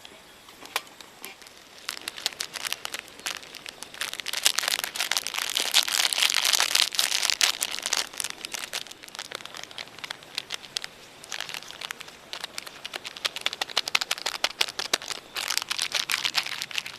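Crinkling and rustling of material being handled, in irregular spells of dense crackles: a long, louder stretch from about two to nine seconds in, then another that runs on until it stops sharply near the end.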